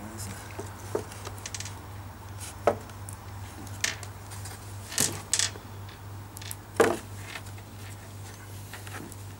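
Scattered clicks and knocks of model-aircraft parts being handled and fitted together, the loudest knock about seven seconds in, over a steady low hum.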